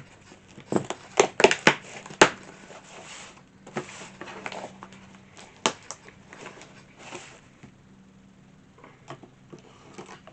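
Packaging being handled and opened by hand: crinkling, rustling and sharp clicks and taps, busiest in the first couple of seconds, then scattered.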